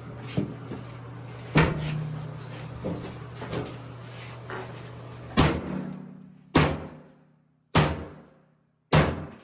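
Heavy hammer blows striking the bathtub while prying it out, each hit ringing briefly. A few lighter knocks come first, then four hard blows about a second apart near the end.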